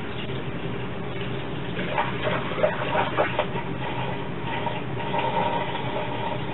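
Water pouring from a plastic jug through a funnel into a glass carboy of wort, topping up the batch. A steady splashing pour, with a few louder gurgles about two to three seconds in.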